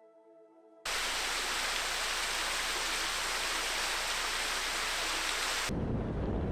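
Faint ambient music, then about a second in a loud, steady rushing hiss cuts in abruptly. Near the end it cuts to a lower, rougher rumbling noise.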